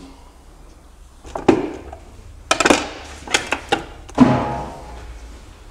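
Steel gearbox parts clinking and knocking against each other as they are handled, a few separate strikes. The strike about four seconds in rings on briefly with a metallic tone.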